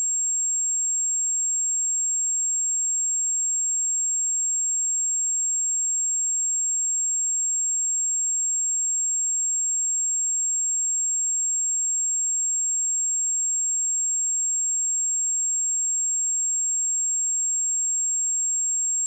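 Electronically generated 7531 Hz sine-wave speaker test tone: one pure, high-pitched tone held steady at a constant level.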